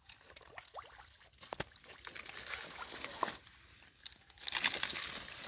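Water sloshing and trickling with scattered crunchy clicks, and a louder stretch of splashing about four and a half seconds in.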